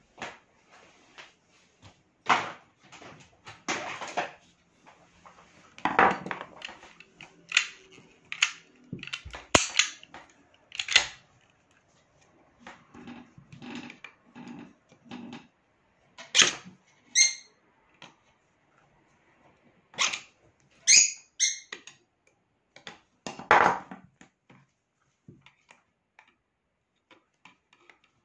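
Irregular sharp metallic clicks, clacks and taps from a Kimar pistol being worked on with a screwdriver and pliers, a couple of them ringing briefly. The work is to free a round clogged in the pistol.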